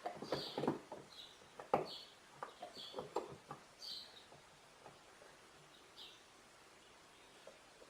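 Light clicks and knocks of small starter-motor parts being handled and fitted, mostly in the first half. Short high chirps, like a small bird calling, recur in the background about once a second.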